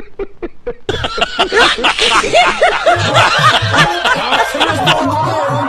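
A man laughing in quick, even pulses, then about a second in a sudden switch to louder, denser laughter with many overlapping rising and falling cries.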